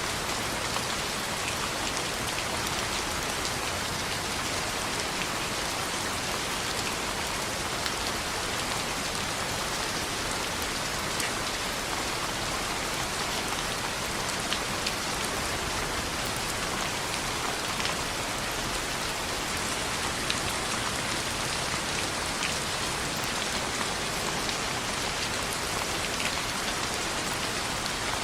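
Steady rain falling on a window, a dense even hiss with scattered faint sharp ticks.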